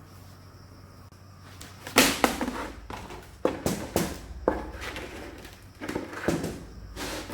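A faint low hum, then from about two seconds in a series of sharp knocks and clattering, the first knock the loudest.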